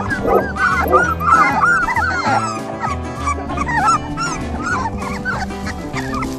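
Puppies yipping and whimpering: many short, high yelps crowded together in the first couple of seconds, then fewer and more scattered.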